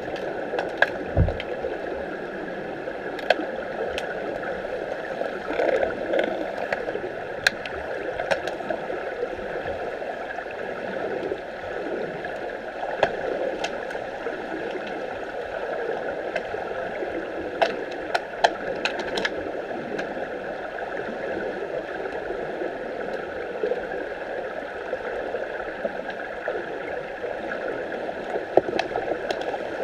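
Underwater sound in a swimming pool during an underwater hockey game: a steady muffled rush of water with scattered sharp clicks and knocks, and a brief low thump about a second in.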